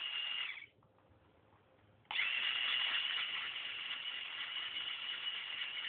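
Lego electric motor driving a K'nex roller coaster chain lift through gears, whirring with chain rattle. It cuts off about half a second in, stays silent for over a second, then starts again with a quick rising whine and runs steadily.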